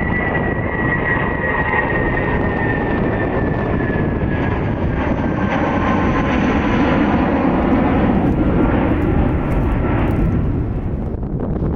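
Airbus A319 jetliner climbing out after takeoff: a steady rumble from its twin jet engines, with a thin whine that slowly falls in pitch as the plane passes and moves away.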